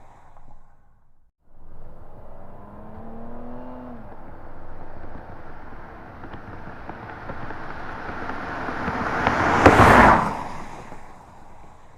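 A car approaching and passing by: its engine note rises in pitch, then the sound grows steadily louder to a peak near the end and fades quickly away.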